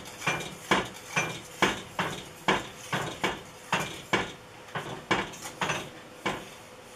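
A kitchen utensil stirring in a metal pot, clinking against its side about twice a second in a steady rhythm. The stirring keeps the hot milk moving while beaten egg yolks are added a little at a time to temper them so they don't curdle.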